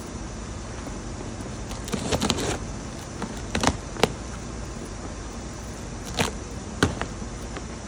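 Large cardboard shipping box being opened and handled: rustling and scraping of cardboard flaps, with a few short sharp knocks, over a steady background hum.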